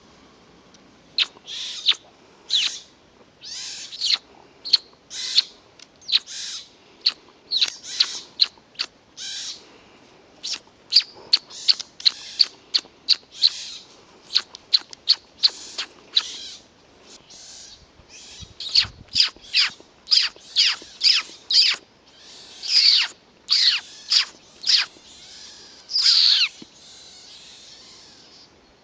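Repeated short, high-pitched calls, about two a second, each sliding down in pitch, with a few longer downward-sliding calls near the end.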